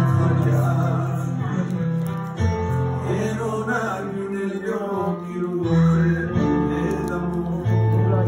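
Yamaha electronic keyboard accompaniment with long held bass notes and chords, and a man singing over it.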